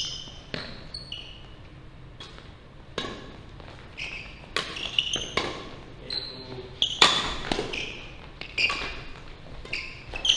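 Badminton doubles rally: sharp racket-on-shuttlecock hits about every second, growing busier after about four seconds, mixed with short high sneaker squeaks on the wooden court floor, echoing in a large hall.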